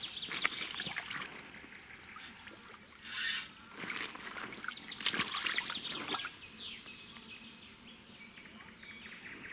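Water splashing and trickling as a hooked bream is brought to the bank and landed, in irregular splashes and drips. Birds call in the background.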